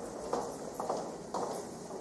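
Footsteps on a hard corridor floor, a steady walking pace of about two steps a second.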